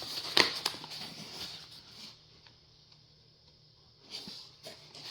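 Egg carton being handled and opened: a few sharp clicks and rustles in the first two seconds, then a quiet stretch, then a few more clicks near the end.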